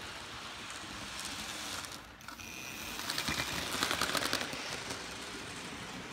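OO-scale model train running on the track with a steady rolling hiss. About three seconds in it grows louder as the train passes close by, with rapid clicking of the wheels over rail joints and points.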